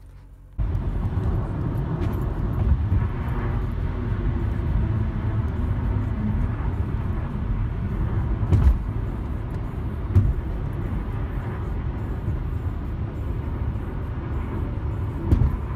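Car driving at freeway speed, heard from inside the cabin: a steady low rumble of road and engine noise that starts abruptly about half a second in, with a few brief knocks.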